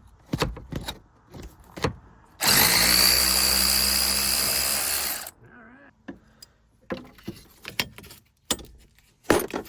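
A cordless power driver with a socket spins for about three seconds with a steady high whine, undoing a 12 mm mounting bolt on a Toyota Hiace's AC compressor. Scattered metallic clicks and knocks of tools and parts come before and after it.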